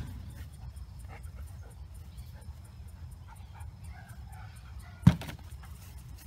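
German Shepherd detection dog searching on a leash around a metal cabinet, with faint whines and movement sounds. About five seconds in comes a single sharp knock as the dog paws at the cabinet.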